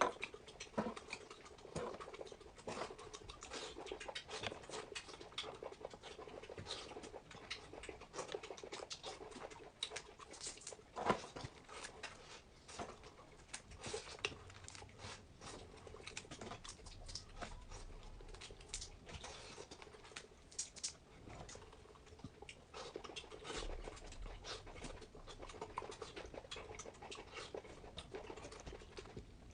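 Close-miked eating sounds: chewing and mouth noises making many small, irregular clicks, with a slightly louder one about eleven seconds in.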